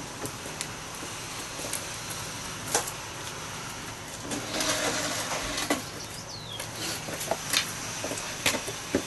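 Junk being handled and moved about: scattered knocks and clatter over a steady low hum.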